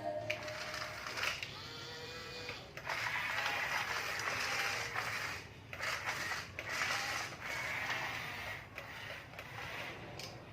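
Faint whirring and clicking of a toy RC excavator's small electric motors and plastic gearboxes working in stretches.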